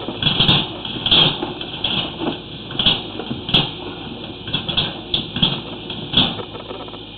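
Irregular knocks and scraping as a sewer inspection camera's push rod is fed down the drain line and the camera head bumps along the pipe, several uneven bursts a second.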